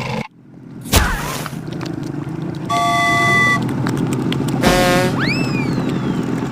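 Cartoon sound effects over a steady rushing background: a sharp hit about a second in, a short horn-like toot near the middle, then a buzzy honk followed by whistle glides that rise and fall.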